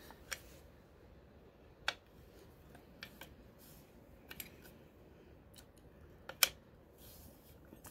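Scattered light metallic clicks and clinks of an open-end wrench being fitted onto and worked against the oil line fitting of a Ford 8N tractor, with the sharpest click about six and a half seconds in.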